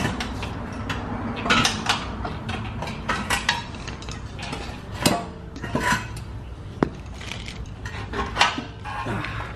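Metal tools and suspension parts clinking and clanking as they are handled, a dozen or so irregular knocks over a low steady hum.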